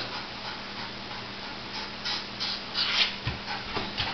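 A Jack Russell terrier jumping up against wooden kitchen cabinet doors, its claws scraping the wood and its paws thudding back down on the tile floor, a few times from about two seconds in.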